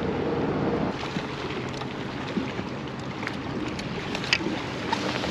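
Steady rumble of traffic on the road bridge directly overhead.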